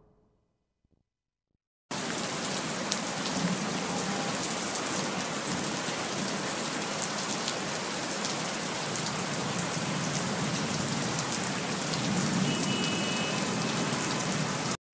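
Steady rain falling, an even hiss with scattered sharp taps of drops, cutting in abruptly about two seconds in after a moment of silence.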